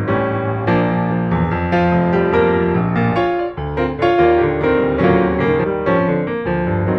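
Background piano music, a steady run of notes and chords with no pause.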